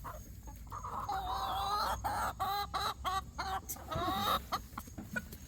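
Chickens calling: a long wavering call about a second in, then a run of short clucks.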